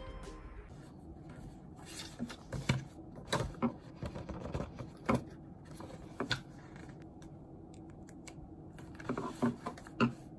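Paper sheets being handled and laid down on a wooden desk: scattered rustles and small knocks, about a dozen, over a low steady room hum.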